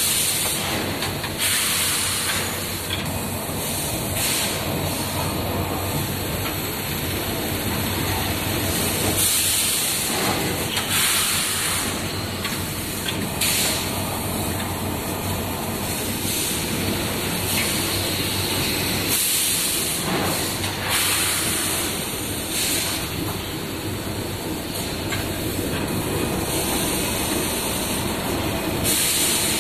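Automatic 30 kg wheat bag-filling and packing line running: a steady machine hum, with short hisses of compressed air every few seconds as the bag-handling mechanism cycles.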